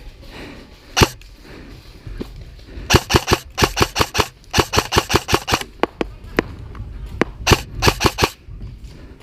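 Airsoft rifles firing: a single shot about a second in, then repeated short rapid bursts of several shots each.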